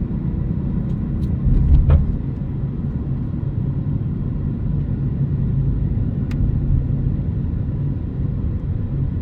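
Steady low rumble of a car driving, engine and tyre noise heard from inside the cabin, with a few faint clicks.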